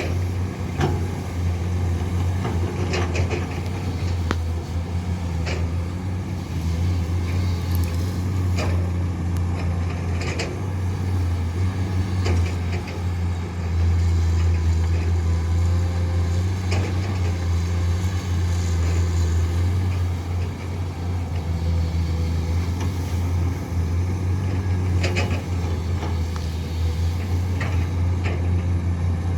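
Komatsu PC210 hydraulic excavator's diesel engine running steadily under working load as it digs. Scattered metallic clanks and knocks come from the bucket and the machine.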